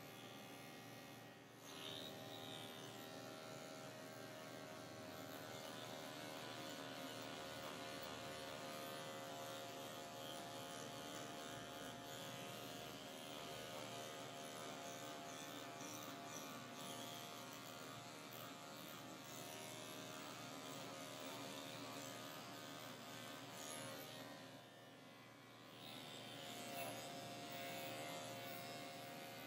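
Cordless electric dog clipper running steadily with a constant hum while shaving off a pelt-matted coat. It drops off for about two seconds some twenty-five seconds in.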